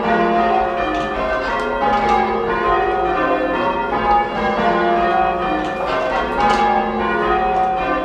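Church tower bells being rung in change ringing: a band of bells struck one after another, their tones overlapping and ringing on.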